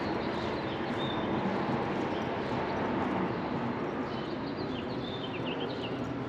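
Small birds chirping over steady outdoor background noise, with a quick run of short chirps about four to five seconds in.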